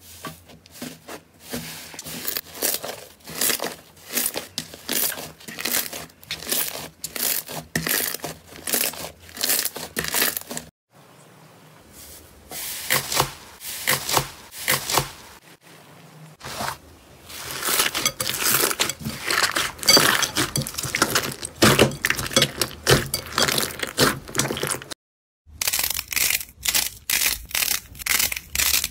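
Hands pressing and squeezing thick slime, a crisp crackling, crinkling sound with each press, repeated over and over. Two short breaks about 11 and 25 seconds in, where one slime gives way to the next.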